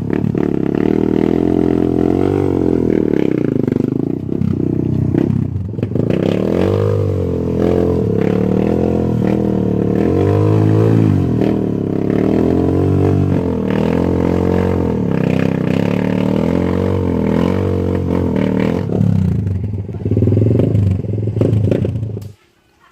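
Vehicle engine revving up and down again and again as it works through mud on the road, cutting off suddenly near the end.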